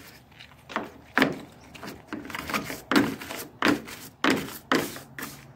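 A small hand scrub brush scrubbing grime out of a window's sliding track in short, hard strokes, about one or two a second.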